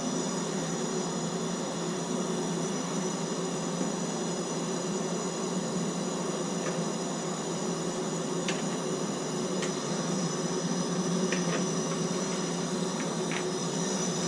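Soldering torch flame hissing steadily as it heats a copper pipe joint, with a few faint ticks in the second half.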